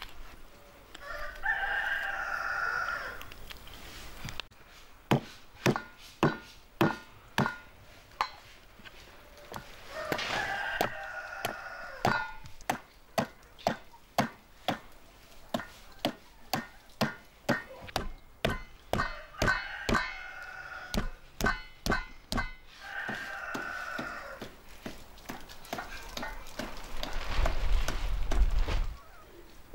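A knife chops through a whole raw chicken on a wooden cutting board: a long run of sharp strikes at about one to two a second. A rooster crows several times between the chops, and there is a low rumble near the end.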